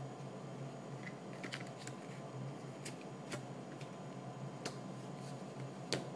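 A deck of playing cards being handled and set down on a table: scattered light clicks and snaps of cards, the sharpest one near the end, over a steady low hum.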